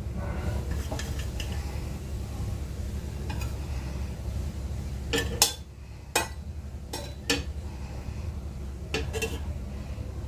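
A metal spoon scraping and clinking against a pot and plate as cooked rice is dished out, with several sharp clinks in the second half.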